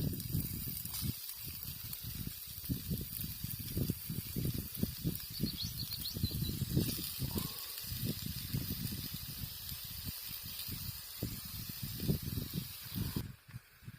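Bacon sizzling in a frying pan, a steady high hiss over irregular low rumbles and bumps; the sizzle cuts off suddenly near the end.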